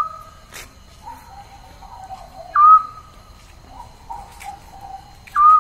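A short, high-pitched animal call that dips and then holds its note, repeated three times at about three-second intervals. Softer, lower warbling calls come between them.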